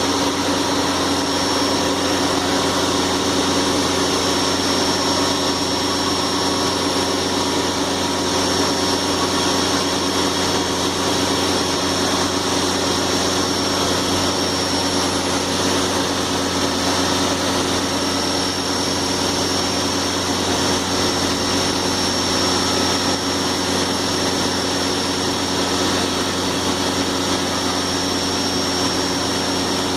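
CNC machine tool running steadily: a continuous machine hum with a steady high-pitched whine over it.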